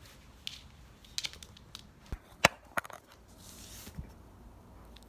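Golden retriever puppy's paws and claws tapping and scuffing on a hard floor right at the camera: a handful of light, scattered clicks, the sharpest about halfway through.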